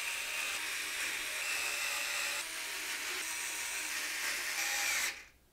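Steady hiss, cutting off abruptly about five seconds in.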